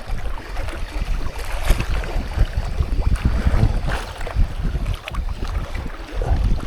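Strong wind buffeting the microphone: a heavy, gusting low rumble.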